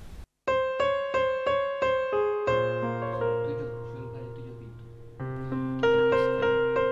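Background piano music after a brief dropout at the start. Single notes are struck at an even pace, about three a second, then a held chord with a low bass note slowly dies away, and a new phrase of notes enters a little past halfway.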